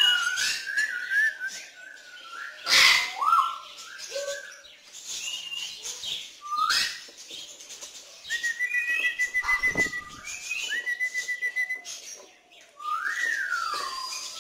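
A parrot whistles a series of rising and falling notes. Past the middle come two longer warbling whistles, each held at one pitch, and near three seconds there is one short harsh squawk.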